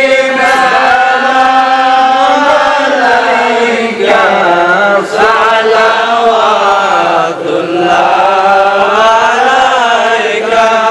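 A man's solo voice singing a Bengali Islamic devotional song (gojol) into a microphone. He holds long, drawn-out notes that slowly rise and fall in pitch, with short breaths between phrases.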